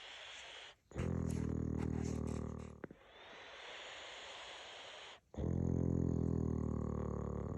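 A sleeping pet snoring: a soft, breathy breath followed by a loud, buzzing snore of about two seconds, twice over.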